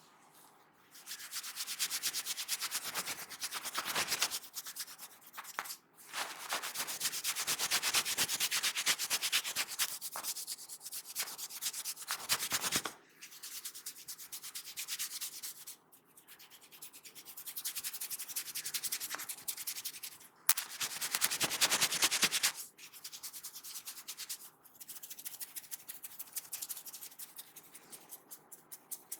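A massaging barber's hands rubbing rapidly back and forth over skin and hair, in runs of a few seconds with short breaks between them.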